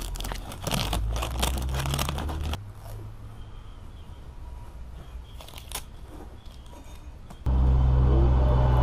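Blue masking tape being peeled and torn off a painted cardboard tube: a dense crackling for the first two and a half seconds, then softer rustling. Near the end, a loud, steady low engine rumble from a vehicle sets in abruptly.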